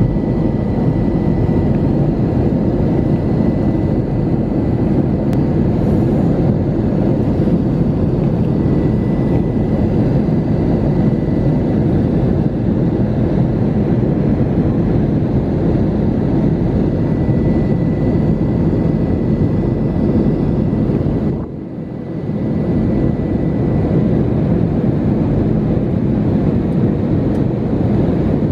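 Steady cabin noise inside an Airbus A321 airliner descending on approach: a constant roar of engines and airflow with a faint high whine held steady. The noise dips briefly about three quarters of the way through, then returns.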